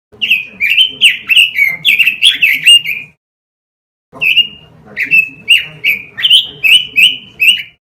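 Pekin robin (red-billed leiothrix) singing: two fast phrases of loud, clear, slurred whistled notes, about three a second, with a pause of about a second between them.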